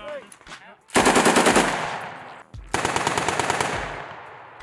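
Two short bursts of automatic fire from an M240 belt-fed machine gun, the second about a second after the first ends, each a rapid even string of shots whose report trails off after it.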